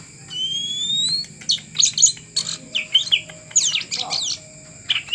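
Oriental magpie-robin (kacer) singing: a long rising whistle, then a quick run of sweeping, squeaky chirps and one more short note near the end.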